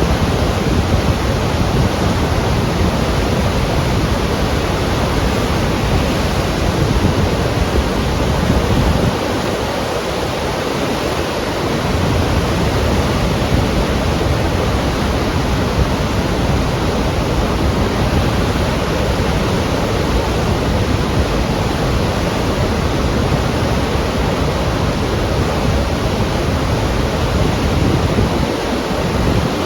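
Waterfall: a steady, dense rush of falling water, heaviest in the bass. It briefly thins and softens a little around ten seconds in.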